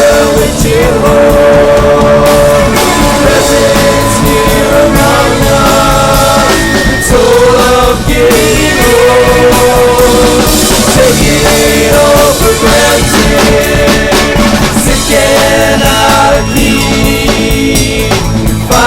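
Moog Prodigy monophonic analog synthesizer playing a lead line that bends and wavers in pitch, over a loud backing track with drums.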